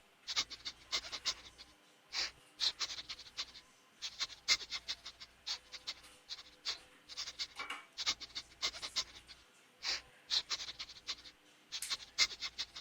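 Pet rats close to the microphone, making an irregular run of short, high, scratchy sounds, several a second.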